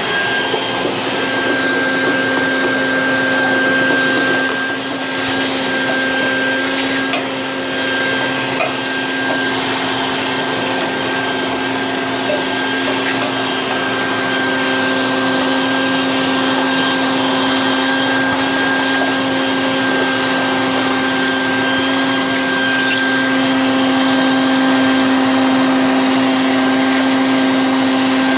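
A small electric motor running steadily with a constant whine and airy noise, dipping slightly in level around four to seven seconds in.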